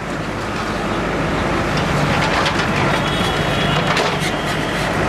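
Backhoe loader's diesel engine running steadily under load as its arm tears down shop fronts, with metal sheeting and debris crashing and clattering several times.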